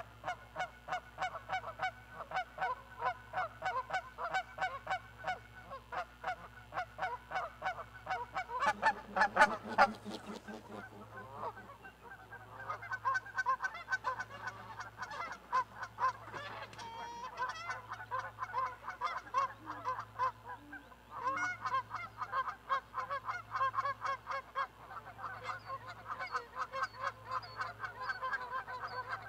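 Geese honking over and over, a few honks a second, loudest about nine to ten seconds in as they fly past, then honking on.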